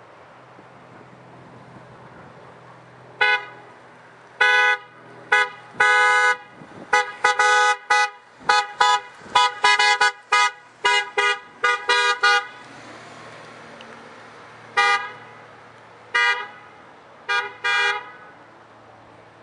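Amtrak locomotive's Nathan K5LA five-chime air horn played as a horn show: a rapid, irregular string of about twenty short chord blasts, a few held longer, then after a pause four more spaced-out toots.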